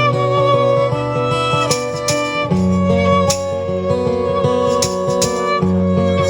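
Live band playing an instrumental break of a pop song, with a violin carrying the melody over guitar and bass.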